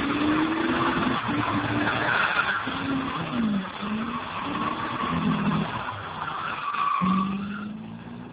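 C3 Chevrolet Corvette V8 revving up and down during a burnout, its spinning rear tyres squealing. The sound fades away near the end.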